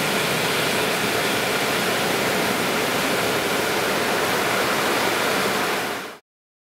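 Car wash dryer blowers running with a steady hiss of rushing air, which stops abruptly near the end.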